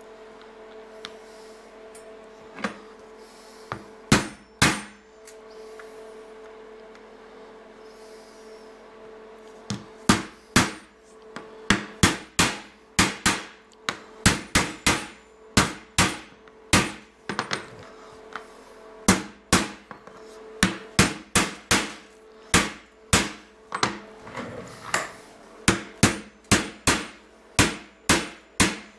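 A hammer striking a punch held on a flat board, marking hole positions for drilling. Two sharp taps come about four seconds in, then from about ten seconds in a long run of sharp taps in quick groups. A steady hum runs underneath.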